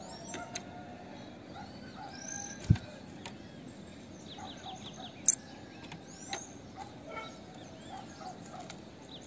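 Female bananaquit calling: scattered short high chirps, a quick run of notes just before four seconds in and a sharp high note a little after five seconds. One brief low thump a little before three seconds.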